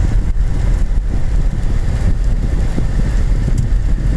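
A car being driven, heard from inside the cabin: a steady low rumble of road and engine noise.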